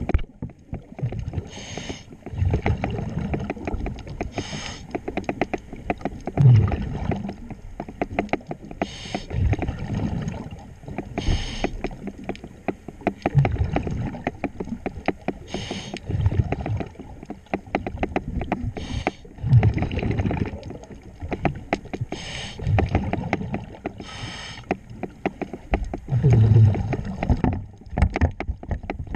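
A diver's underwater breathing regulator: a hiss on each inhalation alternating with rumbling bursts of exhaust bubbles, in a slow, regular cycle of about one breath every four seconds. Scattered light clicks and knocks run through it.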